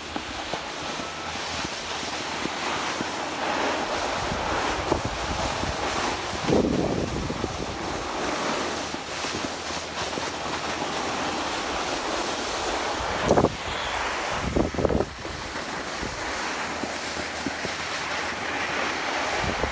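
Wind rushing over a phone microphone while moving down a ski slope, mixed with the hiss of sliding over packed snow. A few short, louder surges come about six, thirteen and fifteen seconds in.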